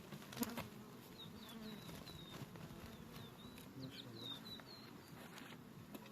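Honeybees buzzing at an open hive, a steady low hum, while a small bird chirps a quick run of short high notes through the middle. A single sharp click sounds just under half a second in.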